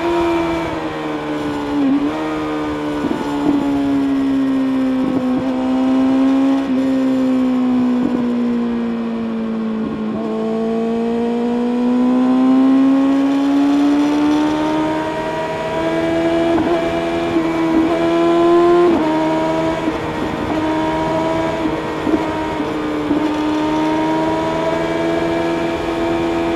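Kawasaki ZX-6R inline-four engine running through an Akrapovic exhaust while the bike is ridden. The pitch sinks slowly for about ten seconds, then climbs back over the next several and holds steady, with a few short breaks in the note along the way.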